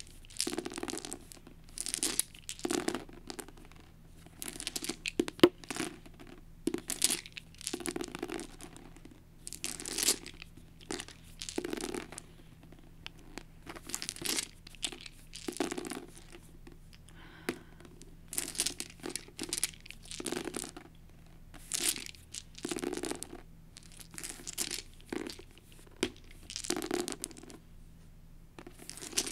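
A handful of small plastic six-sided dice being scooped up and rolled again and again onto a paperback book cover: repeated bursts of rattling clatter and clicks, one every second or two, with the scrape of a hand sweeping the dice across the cover.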